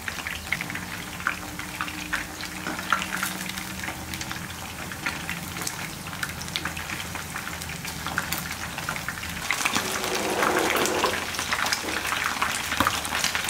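Chicken 65 pieces in a flour-and-masala batter deep-frying in hot oil: a steady crackling sizzle with many small pops.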